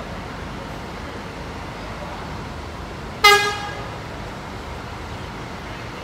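A departing Sugeng Rahayu bus sounds its horn once, a short bright toot about three seconds in that dies away quickly. Steady bus engine noise runs underneath.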